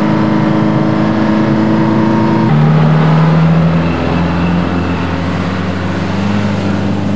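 Background instrumental music of sustained held chords, shifting to a new chord about two and a half seconds in.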